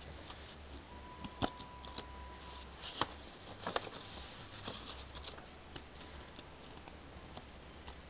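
A paper instruction booklet being handled and shifted on a wooden table: light rustling and scattered ticks, with a few sharp clicks about a second and a half, three and nearly four seconds in, over a low steady hum.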